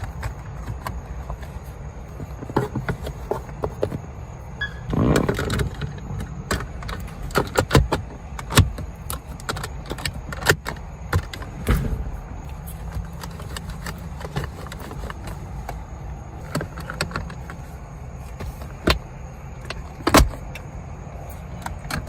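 Scattered clicks, knocks and jangles of car interior trim pieces and tools being handled during dashboard reassembly, with a brief rustle about five seconds in, over a steady low hum.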